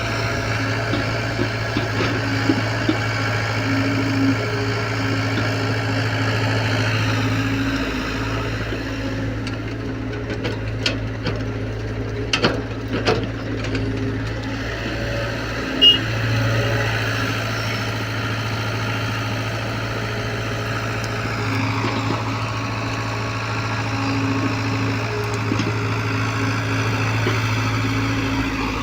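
Hyundai excavator's diesel engine running steadily, its note shifting a few times as the load changes. A few sharp knocks come about halfway through.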